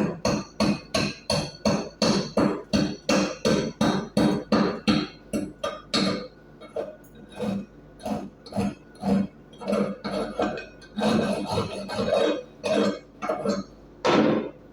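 Chipping hammer striking a steel weld piece over and over, knocking slag off an E6013 weld bead, with the metal ringing after each blow. The strikes come quickly, about three or four a second, then slow to a sparser, uneven tapping in the second half, ending with one last loud blow.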